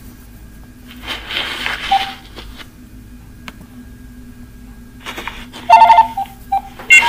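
Telephone tones: after a quiet stretch with a brief hiss, short loud electronic beeps about six seconds in, like a phone's keypad or call tones.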